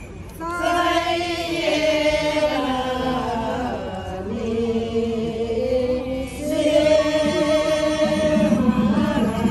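A group of voices singing a slow chant in unison, with long held notes that slide down and back up in pitch, breaking for breath every two to three seconds.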